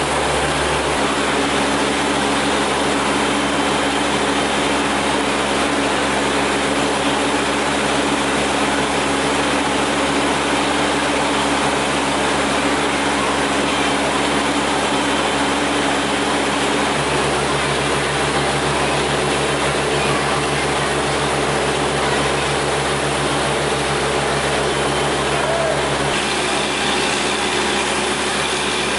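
High-power air compressor's engine running under load, with a steady rush of compressed air blasting water up out of a borewell during bore cleaning. The engine hum shifts pitch a few times, about a second in, past the middle and near the end.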